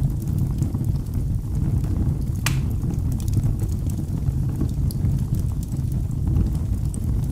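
Wood fire burning in a fireplace: a steady low rumble with scattered small crackles, and one sharper crack about two and a half seconds in.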